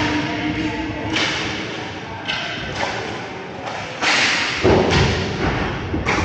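Roller hockey play echoing in an arena: irregular knocks and thuds, the loudest about four to five seconds in.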